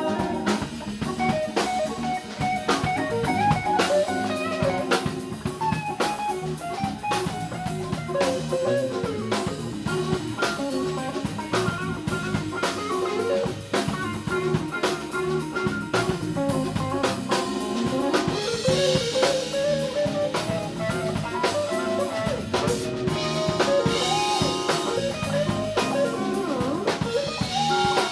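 A live instrumental quartet playing: Hammond B-3 organ, hollow-body electric guitar, bass guitar and drum kit, with a melody line winding over a steady drum beat. Cymbals swell up about two-thirds of the way through and again near the end.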